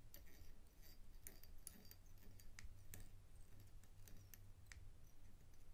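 Near silence with faint, irregular small clicks and ticks of thread being wrapped onto a hook held in a fly-tying vise with a bobbin holder, as copper wire ribbing is tied in. A low steady hum runs underneath.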